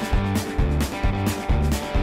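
Background music with a steady beat, about two beats a second over a bass line.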